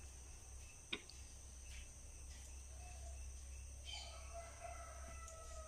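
Faint steady high-pitched chirring of crickets over a low hum, with a single click about a second in and faint drawn-out tones from about four seconds in.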